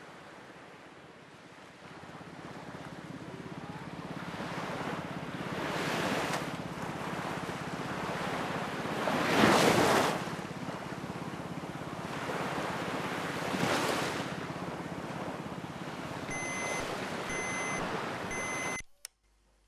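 Sea waves washing onto a beach, the surf swelling and falling back three times, the middle wave the loudest. Near the end come three short high electronic beeps, then the surf cuts off abruptly.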